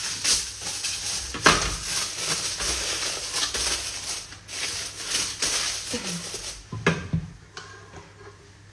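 Aluminium foil crinkling and rustling as it is pressed and folded around a metal cake ring. Two sharp knocks come through it, one about a second and a half in and another near seven seconds.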